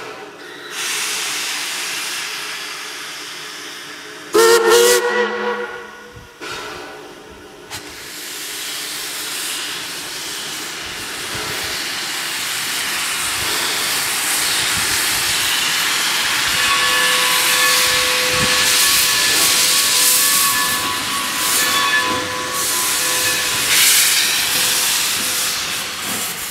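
Steam locomotive No. 40, a Baldwin 4-6-0, hissing steam, with one loud steam-whistle blast about four seconds in. After the blast the steam hiss builds and runs on, with a faint steady whistling tone in it during the second half.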